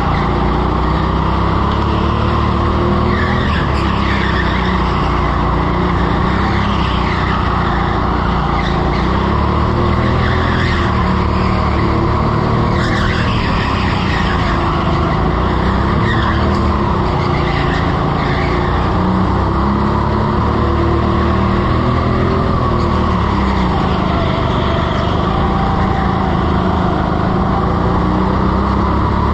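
Go-kart heard from on board while lapping at speed: its motor runs steadily under power, with short tyre squeals and scrabbling on the slick indoor track floor that recur through the corners.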